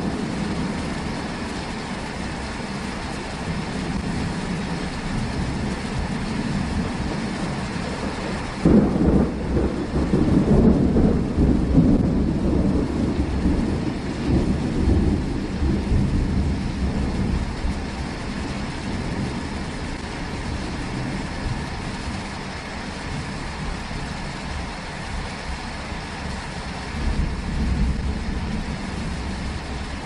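Steady rain falling through a thunderstorm. About nine seconds in, thunder breaks suddenly and rolls on for several seconds, and a lower rumble of thunder swells again near the end.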